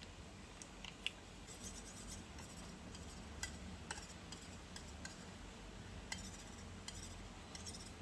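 Faint light clicks and clinks of a tiny metal spoon tapping and scraping in a miniature steel pan while butter is stirred as it melts, with a sharper tap about a second in.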